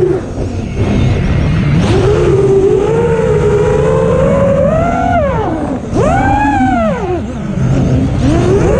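Quadcopter's brushless motors and propellers whining, the pitch sliding up and down with the throttle. Sharp throttle cuts come just after the start, about six seconds in and about seven and a half seconds in, each followed by a climbing whine.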